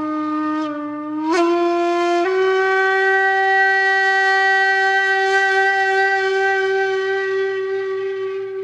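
Background music: a solo wind instrument plays a few notes, sliding upward over the first two seconds, then holds one long steady note.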